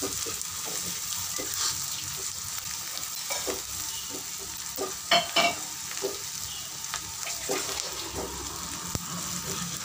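Sliced onions, green chillies and ground spices sizzling in hot oil in a kadai as a spatula stirs and scrapes them around the pan: the masala being sautéed down (kasha). A few louder knocks of the spatula against the pan about five seconds in.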